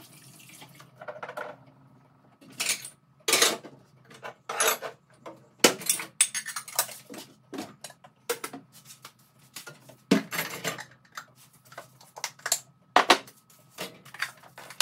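Dishes and cutlery clinking and clattering in irregular sharp knocks as they are washed at a kitchen sink and put away.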